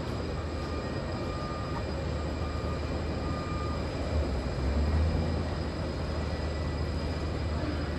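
Steady low rumble of airport apron noise, aircraft and ground equipment, swelling briefly about four to five seconds in, with a faint thin whine early on.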